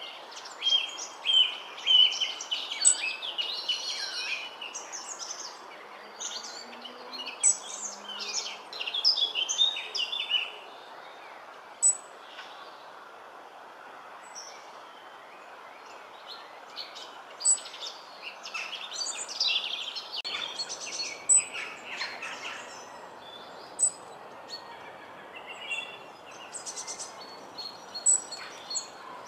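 Several birds singing and chirping outdoors, many short high calls and trills over a faint steady background hiss. The song is busiest at first, thins to single sharp chirps midway, then picks up again for a few seconds.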